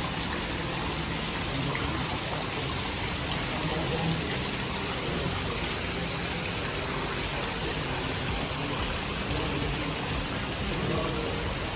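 Water running down a stone water-feature wall into a shallow pool: a steady splashing rush of falling water.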